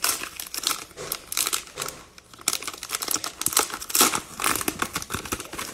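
Plastic wrapper of a 2021 Mosaic football cello pack being torn open and crinkled by hand: a run of crackling rustles with a short lull about two seconds in.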